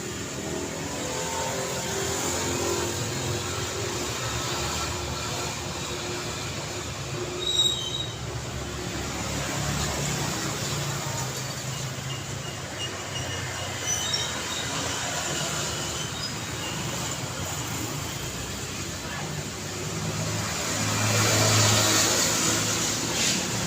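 Daytime city street traffic: a steady wash of vehicles running past, with a short high-pitched squeal about seven seconds in, a fainter one near fourteen seconds, and a vehicle passing close and loud near the end.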